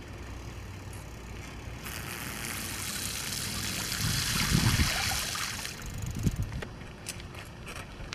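Bicycle tyres rolling through shallow floodwater on a paved street, a hissing splash that starts about two seconds in and stops about two seconds before the end, with a few low thumps.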